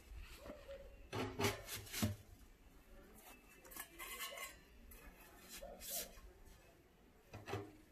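Stainless-steel chimney pipe sections knocking and scraping against each other and a plastic crate as they are handled: a few separate clinks with rubbing between.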